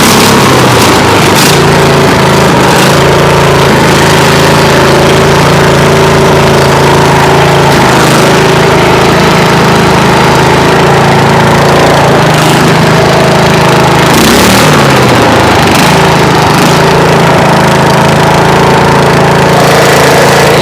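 Freshly repaired Derby lawn mower engine running steadily and loud. Its pitch dips briefly and recovers about 14 seconds in.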